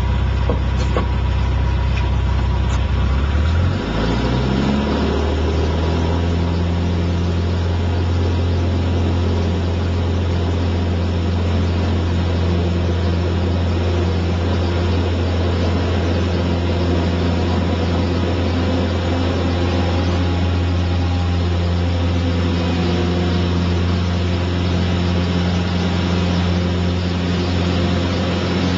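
Light aircraft's engine and propeller heard from inside the cockpit, rising in pitch to full power about four seconds in. It then runs steadily at high power through the takeoff roll and climb-out.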